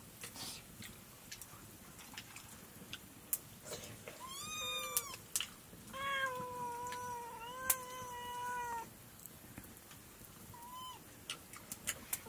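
A cat meowing: a short bending meow about four seconds in, then one long, drawn-out meow of nearly three seconds, and a brief one near the end. Scattered light clicks sound between the calls.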